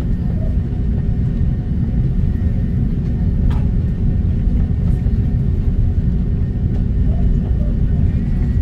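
Steady low cabin rumble of an Airbus A330 taxiing, heard from inside the cabin over the wing. Its Rolls-Royce Trent 700 engines are at low taxi thrust.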